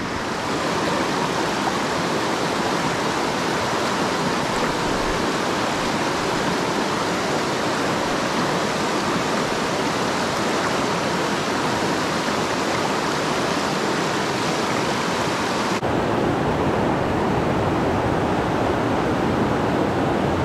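Fast mountain river rushing over boulders, a steady roar of whitewater running high with snowmelt runoff. About three-quarters of the way through, the rush changes suddenly to a deeper, lower sound with less hiss.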